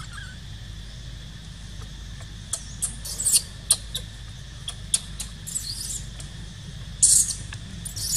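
Newborn long-tailed macaque giving a string of short, high squeaks, the loudest cluster near the end.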